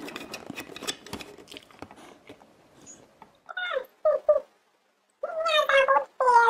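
A dog vocalizing in pitched, wavering 'talking' calls: a short one about three and a half seconds in, two very short ones just after, then two longer ones near the end. Before them, a stretch of scratchy clicking and scuffling noise.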